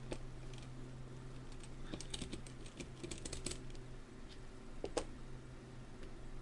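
Light scattered clicks and taps from the small parts of a mortise lock being handled and unscrewed, with one sharper knock about five seconds in. A steady low hum runs underneath.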